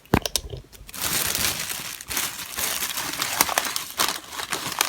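Packaging crinkling and rustling as new toys are handled, starting with a few sharp clicks and then a dense, steady crackle.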